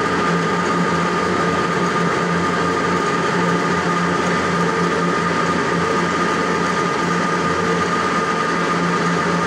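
Metal lathe running steadily with a steady high whine, its spindle turning the workpiece while a knurling tool is worked against it.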